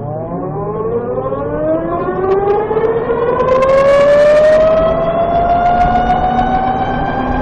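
Vectrix VX-1 electric scooter's motor and transmission whining, rising steadily in pitch as it accelerates under load. A rapid high chirping joins for about a second around the middle: the transmission chirp, which the rider finds worst at lower speeds under load and louder once the transmission is warm.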